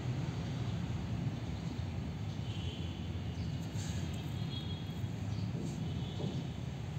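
Outdoor ambience: a steady low rumble, with faint high chirps twice, near the middle and near the end.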